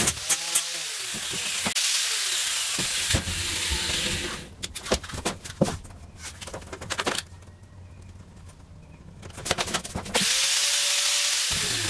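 Corded handheld power tool cutting through the truck body's sheet-metal wall with a harsh hiss, which stops about four seconds in. A stretch of scattered clicks and taps follows, then the tool spins up and cuts again just after ten seconds.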